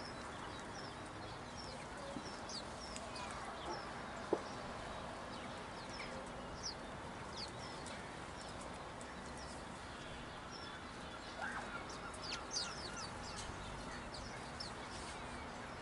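Small songbirds chirping and calling, short high chirps scattered throughout with a busier cluster of calls near the end, over a steady outdoor background hiss. One brief sharp click a little after four seconds.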